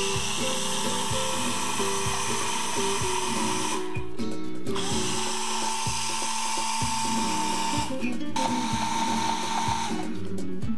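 Hand-held immersion blender running in a beaker of yogurt and water, churning it into lassi. It runs in three stretches, with brief pauses about four and eight seconds in, and stops near the end. Soft background music plays underneath.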